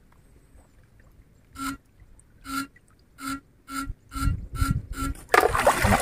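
Short buzzing pulses from a backpack electrofishing unit, about seven of them, each on the same steady pitch and coming closer and closer together. Near the end there is loud sloshing and splashing of water as the wader drives the probe poles into the creek.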